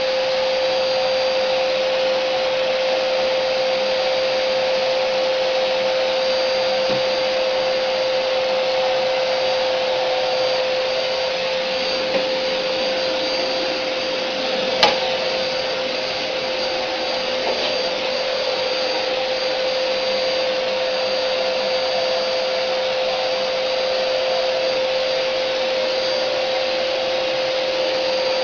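Vacuum cleaner running steadily with an even whine, and a single sharp click about halfway through.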